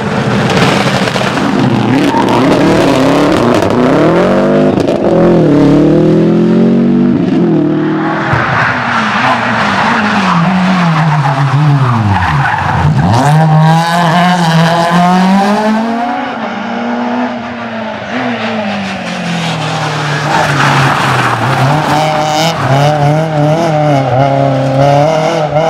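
Rally cars at speed on a stage, engines revving hard, the pitch climbing and dropping with gear changes and lifts off the throttle. About halfway through the revs fall sharply and pick up again.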